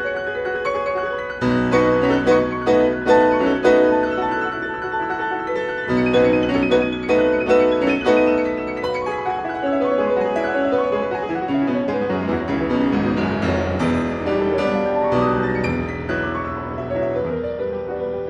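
Background piano music: a continuous run of struck notes, with lower bass notes coming in about a second and a half in.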